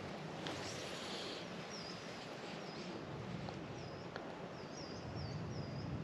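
Steady rush of river water with a small bird calling in the middle: a series of short, high, dipping chirps repeated about a dozen times.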